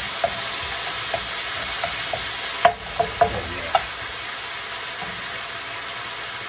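Minced garlic, ginger and oyster sauce sizzling in oil in a hot frying pan while a wooden spatula stirs them. Light scattered taps of the spatula on the pan are heard, with a cluster of louder knocks a little before the middle, after which the sizzle eases slightly.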